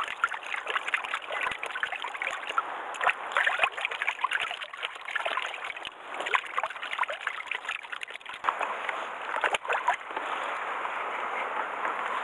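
Water splashing and sloshing in a bucket of seawater as a hand swishes through it, in short irregular splashes. Near the end it settles into a steadier wash of water sound.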